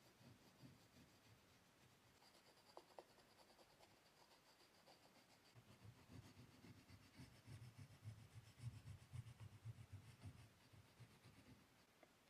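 Faint scratching and rubbing of oil pastel strokes on paper, quick and irregular, growing busier about halfway through.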